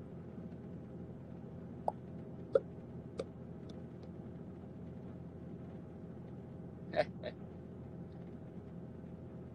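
Steady low room hum, with a few brief vocal sounds from a man: three tiny mouth sounds in the first few seconds and a louder short pair, like a quick chuckle, about seven seconds in.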